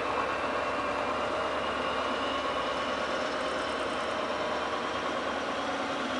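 Diesel locomotive of an alex passenger train, a class 223 Eurorunner, running under power as it hauls the train slowly along the platform, with a steady whine that rises slowly in pitch.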